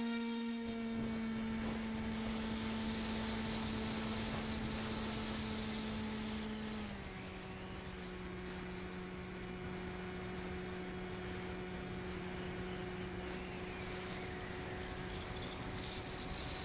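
Electric pusher motor and propeller of a Bixler II Sport RC glider running under power, heard from the onboard camera as a steady buzzing whine over rushing air. The pitch drops a step about seven seconds in as the throttle is eased back, then holds steady.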